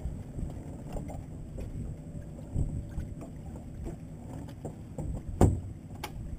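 Small boat sitting on the water: water lapping at the hull and wind on the microphone, with scattered light knocks and one sharper knock about five and a half seconds in.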